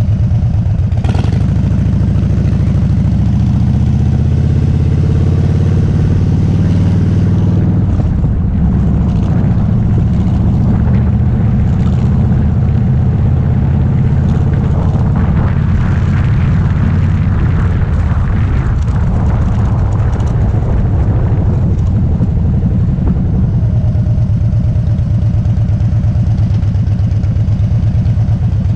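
Harley-Davidson Dyna Street Bob (FXDB) V-twin engine pulling away and accelerating, its pitch rising over the first several seconds. It then runs at road speed, noisier in the middle stretch, and settles to a lower, steadier beat in the last few seconds as the bike slows.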